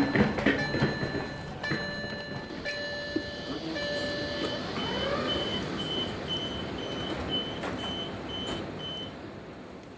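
Warning beeper of an automatic train boarding ramp sounding as the ramp barriers close: first a series of long beeps with short gaps, then, from about halfway, faster, shorter, higher beeps about two and a half a second over a steady mechanical hiss, stopping about a second before the end.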